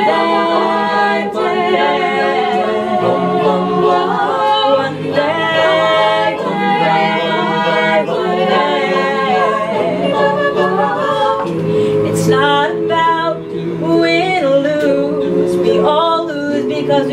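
A mixed male and female a cappella group singing in harmony with no lyrics, chords held and changing every second or two.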